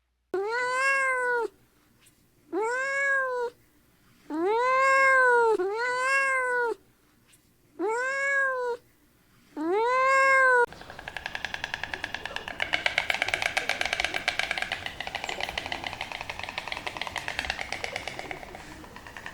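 Domestic cat meowing six times, each a drawn-out call that rises and falls in pitch, with short gaps between. About eleven seconds in, the meows give way to a rapid, buzzy pulsing sound that runs to the end.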